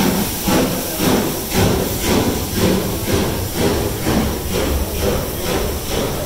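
Steam train pulling out, its exhaust beats coming about twice a second, with the coaches rolling past close by.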